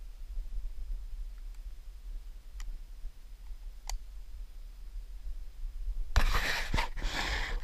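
A steady low rumble with a couple of faint clicks, then, about six seconds in, loud scratching and rubbing as fingers handle the camera.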